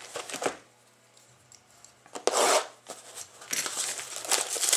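Plastic shrink-wrap being torn and crinkled off a sealed box of trading cards: a short tear about half a second in, a louder rip a little after two seconds, then a run of crackling near the end.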